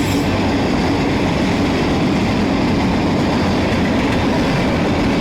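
Loud, steady rush of wind buffeting a bike-mounted action-camera microphone, mixed with tyre and road noise from a road bike riding at speed.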